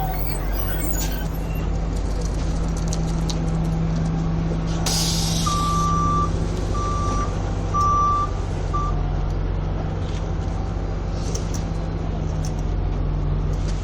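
City bus diesel engine running steadily, with a short burst of air hiss about five seconds in, followed by four short electronic beeps at one pitch, the last one briefer.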